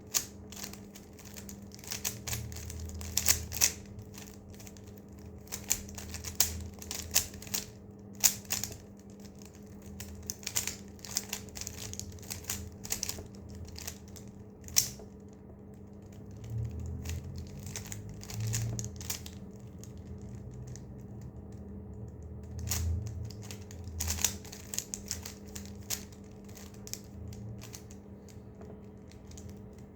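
Plastic Rubik's cube being turned rapidly by hand: irregular clicking and clacking of the layers snapping round, with soft handling thumps and a faint steady hum beneath.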